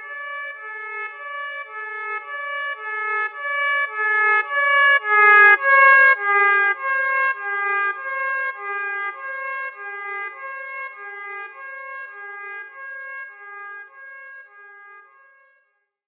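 Emergency alert alarm: a steady high tone held under a lower pulsed tone that repeats about twice a second, growing louder to a peak about six seconds in, then fading away shortly before the end.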